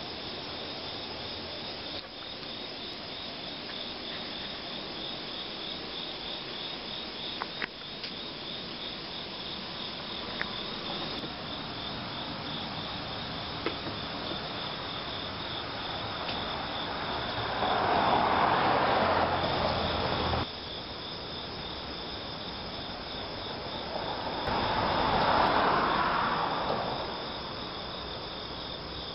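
Insects trilling steadily in rapid, even pulses, a high continuous chorus. Twice a louder rushing noise swells up over it, the first cutting off abruptly, the second fading away.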